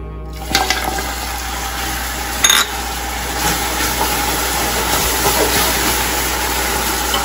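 Fish sauce poured into hot caramelized sugar in a stainless-steel stockpot, sizzling and bubbling hard as it is stirred with a wooden spoon. A sharp clink stands out about two and a half seconds in.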